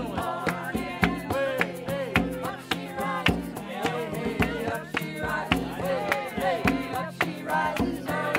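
Acoustic guitar strummed in a steady rhythm while voices sing a song.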